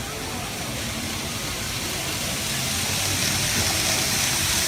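N gauge Shinkansen model train running on the layout track, a steady hiss of motor and wheels growing louder as it draws near.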